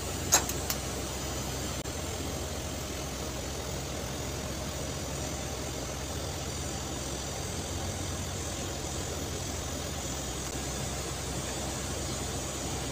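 TIG welding on a 3-inch stainless steel pipe joint with hand-fed filler rod: a steady, even hum from the welding set with a faint hiss, and two sharp ticks near the start.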